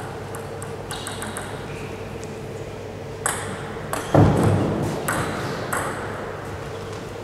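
Table tennis ball hits, with sharp separate clicks of celluloid-plastic ball on rubber racket and table: a few faint ones, then a short rally of louder hits. A heavier low thud just after four seconds in is the loudest sound.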